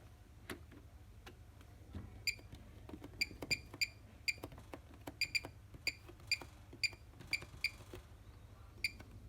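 Control panel of a Bosch HomeProfessional WAY32541NL washing machine giving short, high ticking beeps as its settings are stepped through, one or two a second at uneven spacing, after a few faint plain clicks.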